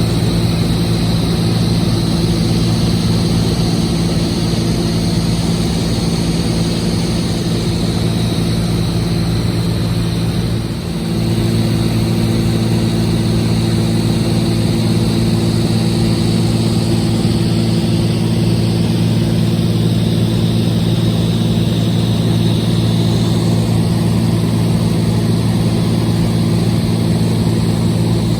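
Cessna 206H Stationair's six-cylinder Lycoming engine and propeller running with a steady, even drone. There is a brief dip in level about eleven seconds in.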